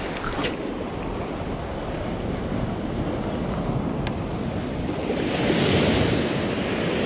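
Ocean surf washing in around the feet, with wind buffeting the microphone; a wave breaks close by about five seconds in, the loudest moment.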